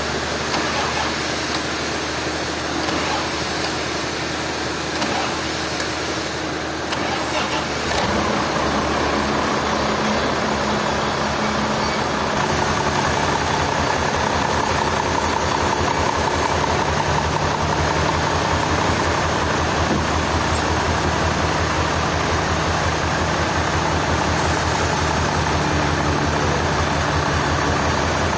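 An engine running steadily at a sawmill. It grows louder about 8 seconds in and again about 12 seconds in, then holds a steady, fast low throb.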